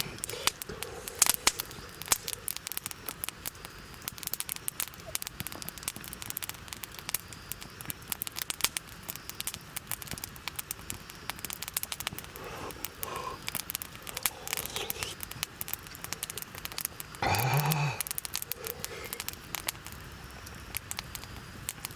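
Wood campfire crackling, with sharp pops scattered throughout. About three-quarters of the way in comes a short voice sound from a person.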